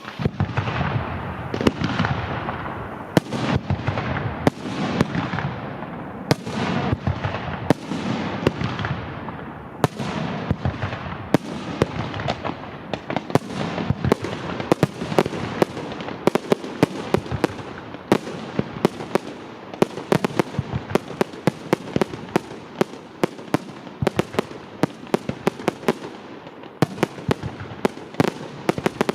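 Fireworks display: a continuous series of shell bursts banging and echoing, several a second, turning into a faster barrage of sharp cracks in the second half.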